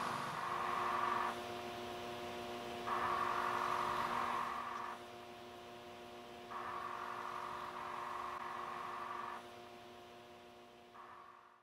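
Emergency ventilator cycling: its motor-driven arm squeezes and releases a resuscitator bag, with a motor whir in stretches of about two seconds, roughly every four seconds, over a steady hum. The sound fades near the end.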